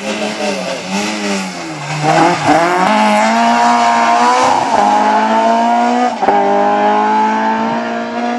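Rally car engine revving hard at full throttle as it approaches and passes close by. The note rises and falls for the first couple of seconds, then grows louder and holds high, dipping briefly twice.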